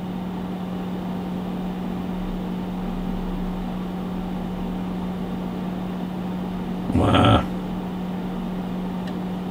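Steady low hum with an even fan-like hiss from running bench test equipment. A short, loud noise breaks in once, about seven seconds in.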